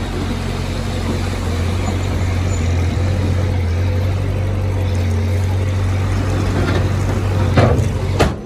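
Heavy construction machine's diesel engine running steadily, with two sharp knocks near the end.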